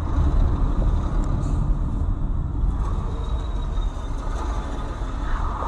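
Car driving at speed, heard from inside the cabin through a dashcam: a steady low rumble of road and engine noise, with a faint steady high whine.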